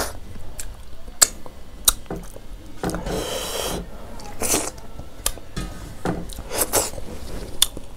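Fingers wiping and scraping the last food from a steel plate, with scattered wet clicks from fingers being licked and a slurp about three seconds in.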